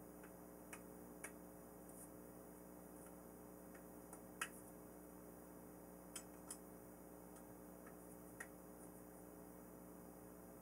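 Near silence over a faint steady hum, broken by about eight small scattered clicks, the loudest a little before the middle: the propeller hub and blades of a model airplane being handled and pressed together.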